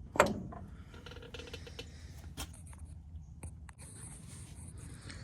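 Small parts being handled while a front-axle assembly is taken apart: one sharp click right at the start, then quiet scraping and a couple of faint clicks.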